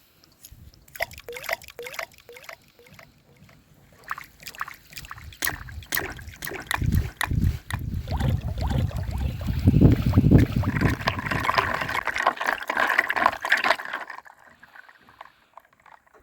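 Water moving around small floating rings: a run of drips and plops over the first few seconds, then louder sloshing and gurgling that builds about halfway through and stops a couple of seconds before the end.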